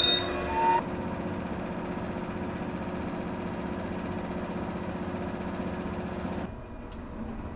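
Train wheels squeal briefly at the start, then a steady, even hum from a yellow electric train standing at a platform. The hum drops to a quieter background about six and a half seconds in.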